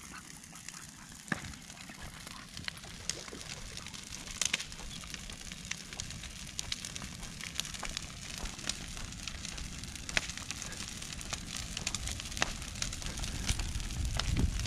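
Bonfire of scrap lumber and pallets crackling, with sharp, irregular pops over a steady hiss. A low rumble grows louder near the end.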